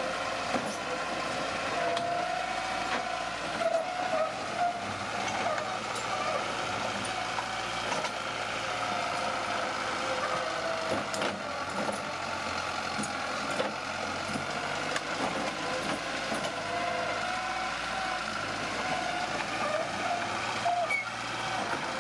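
Bulldozer at work: its diesel engine running steadily under a wavering high squeal, with scattered metallic clanks.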